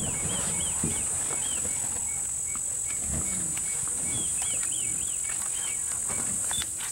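A steady, high-pitched drone of insects in the bush. Over it, a bird calls in two runs of short arched notes: one at the start and another about four seconds in.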